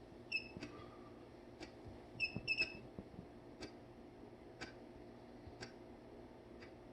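Short electronic beeps, one about a third of a second in and a quick run of three around two and a half seconds in, from the hydrogen water device being switched off. Under them a faint, even tick about once a second, like a clock.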